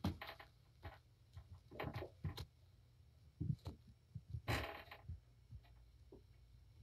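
Kittens scampering on a padded floor: scattered soft thumps and scuffles, with a louder rustle about four and a half seconds in as fur brushes against the camera. A faint steady low hum lies underneath.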